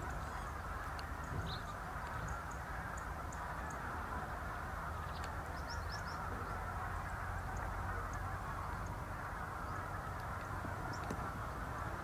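A steady wash of distant birds calling, like a far-off flock of geese, with a few short high chirps scattered through.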